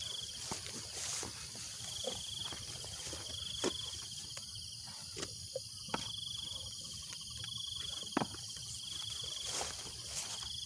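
Insect chorus: a steady high buzz, with a pulsed trill about a second long that repeats about every two seconds. Faint scattered clicks and taps occur now and then.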